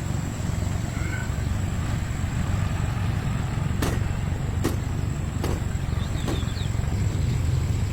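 A motor vehicle's engine running low and steady, with four sharp knocks a little under a second apart in the middle.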